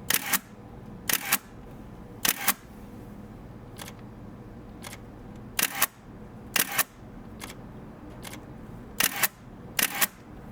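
Nikon F3 35mm film SLR on its motor drive firing single frames: each shot is a sharp shutter clack run together with the motor advancing the film. This happens about seven times, roughly a second apart, with a few fainter clicks in between.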